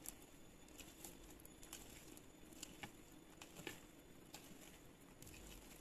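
Very faint, scattered soft ticks and squishes of a silicone spatula folding thick cake batter in a glass bowl.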